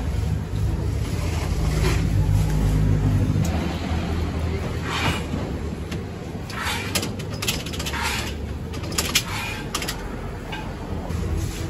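Steady low engine-like rumble, heaviest in the first few seconds, with scattered light metal clinks and scrapes as wire grill baskets are handled on a charcoal rotisserie grill.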